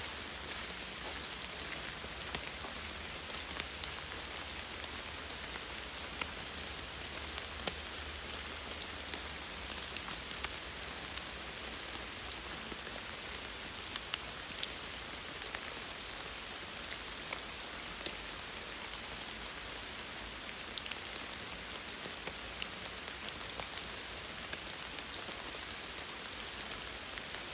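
Steady rain falling on forest foliage: an even hiss with scattered sharp ticks of drops.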